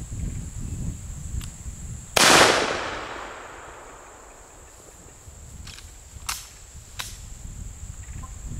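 A single gunshot about two seconds in, its echo dying away over a couple of seconds. Two faint sharp clicks follow a few seconds later.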